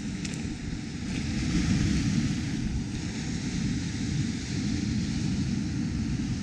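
Wind buffeting the microphone in a choppy low rumble, over the hiss of small waves breaking and washing up the beach. The surf hiss swells about two seconds in.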